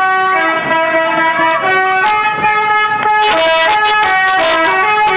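Bus telolet horn: a multi-tone musical air horn playing a long tune of held notes that step up and down between a few pitches.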